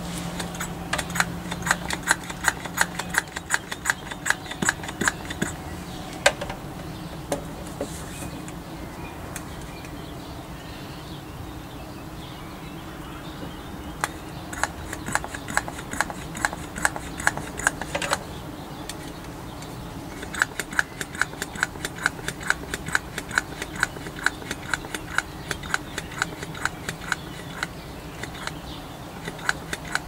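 Hand-squeezed vacuum pump clicking in quick, even strokes, in three runs separated by pauses, as it pumps the air out of a sealed glass jar.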